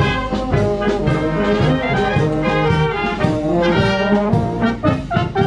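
Marching brass band playing: trumpets and trombones carrying the tune over low tuba bass notes, with a steady rhythm.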